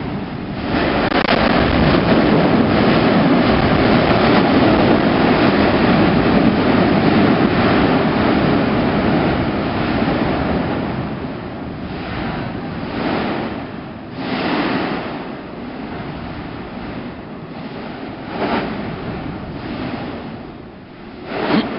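Mount Yasur erupting, heard from the crater rim: a sudden loud rushing roar of gas and ejecta that holds for about ten seconds. It then falls away into several shorter surges, with wind buffeting the microphone.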